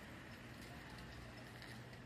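Faint street ambience with a low, steady engine hum from road traffic.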